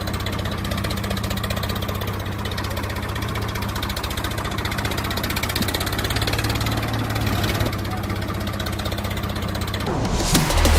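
Diesel tractor engine idling steadily with a rapid even chugging; near the end the pitch and loudness rise as it revs up.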